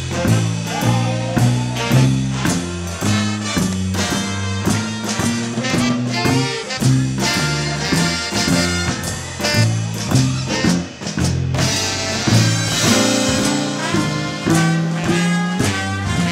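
Swing music from a jazz big band: brass and saxophones over a drum kit, with a bass line walking steadily from note to note.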